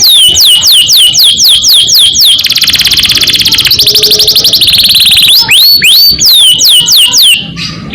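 Domestic canary singing: quick repeated high sweeping whistle notes, then a fast rolling trill ("ngerol") held for about three seconds, then sweeping whistle notes again.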